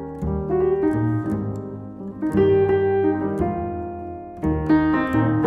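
Slow jazz ballad played on a Keybird acoustic keyboard, its tone softened by a felt strip set between the hammers and the strings, with double bass underneath. Sustained chords ring over bass notes that enter every couple of seconds.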